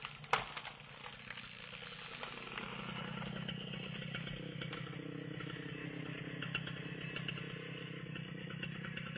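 Poulan Pro PR5020 two-stroke chainsaw idling steadily, growing louder about two seconds in, after a couple of sharp clicks at the start.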